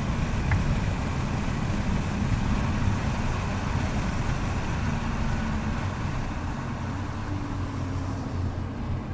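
Inside the cabin of a 2022 Volkswagen Golf R (Mk8) on the move: a steady low rumble of its turbocharged 2.0-litre four-cylinder engine and road noise, easing off slightly near the end.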